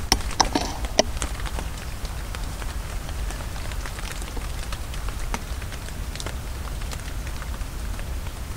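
Steady rain falling, with scattered drops ticking close by and a few louder ticks in the first second.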